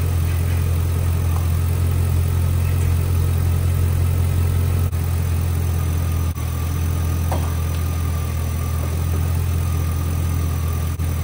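Chevrolet 5.3L V8 in a 2006 Silverado idling steadily with an even low hum.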